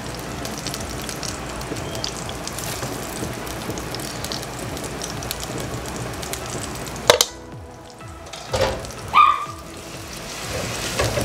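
Patties frying in hot oil in a frying pan, a steady sizzle. About seven seconds in there is a sharp knock, after which the sizzle is much quieter, with a couple of short knocks.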